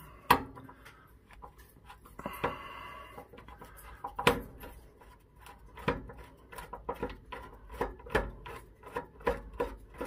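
Screwdriver turning out a corner screw of a Lagard combination lock case: scattered metal clicks and scrapes, with a short rubbing squeak about two and a half seconds in.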